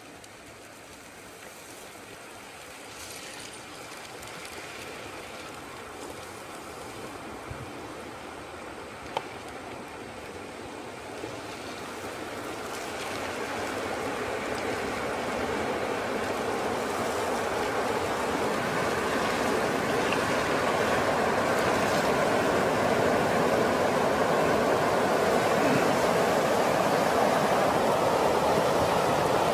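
Rushing floodwater: a steady rush of noise that grows steadily louder over the first twenty seconds or so and then holds, with a couple of brief knocks a third of the way in.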